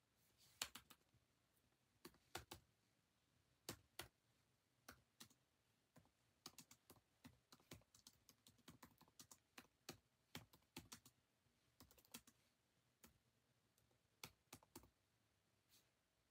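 Faint, irregular clicking and tapping, several short clicks a second in uneven clusters, like keys being typed.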